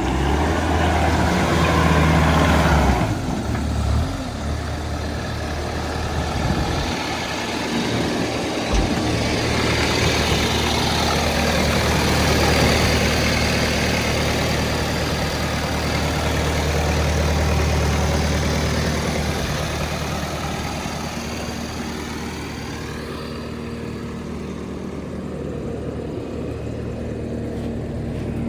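Diesel engine of a Bobcat T650 tracked skid steer loader running, its note rising and falling several times, with louder stretches near the start and about ten seconds in, and settling lower near the end.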